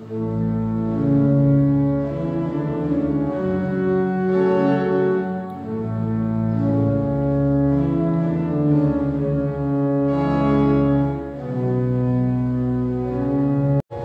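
Pipe organ playing slow, sustained chords over a deep pedal bass. The notes are held and change every second or two, and the sound breaks off for an instant near the end.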